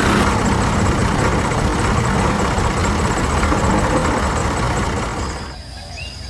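An engine running with a low, rough pulse, dying away about five and a half seconds in.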